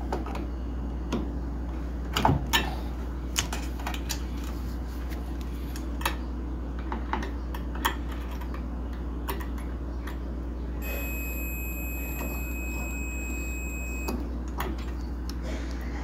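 A digital multimeter's beeper sounds one steady high beep for about three seconds, partway through. Test-probe tips click and scrape against the microwave's high-voltage capacitor and diode terminals. A steady low hum runs underneath.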